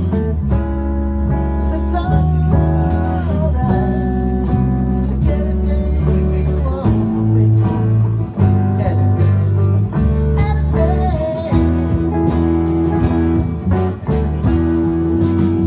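A live band playing a bluesy number: guitar over bass and drums, with higher notes bending in pitch.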